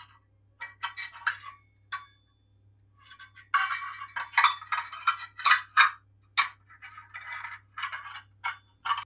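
An irregular run of light clinks and taps from hard objects knocking together, some ringing briefly, busiest in the second half.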